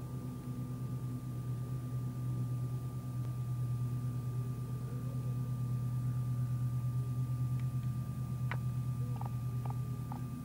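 Steady low mechanical hum with a constant faint higher whine, and a few short faint chirps about eight to ten seconds in.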